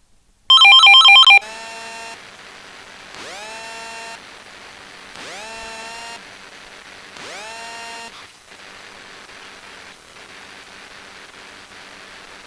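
Phone ringing sound effects: a loud electronic phone ring pulsing rapidly for about a second, then a quieter ringtone of four rising, swooping tones about two seconds apart, followed by a faint steady tone.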